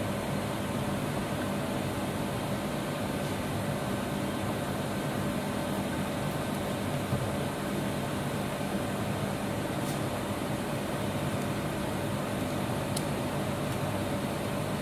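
Steady fan hum with a faint steady whine. Two light clicks of small metal parts being handled, about ten and thirteen seconds in.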